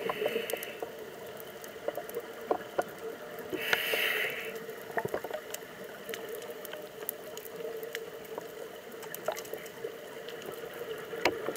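Underwater sound of a scuba diver's regulator exhaust bubbles: a hiss of bubbles dies away just after the start and another burst comes about four seconds in. Between them a steady low hum and many scattered sharp clicks.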